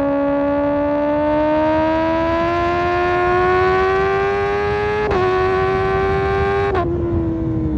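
Kawasaki ZX-6R inline-four with an Arrow Pro Race exhaust, pulling hard under a steady climb in revs. There are two quick upshifts, about five and seven seconds in, each dropping the pitch briefly before the note holds.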